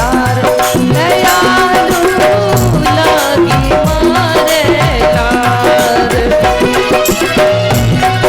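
Rajasthani folk bhajan music: a melody carried over a steady hand-drum beat, with rattling percussion.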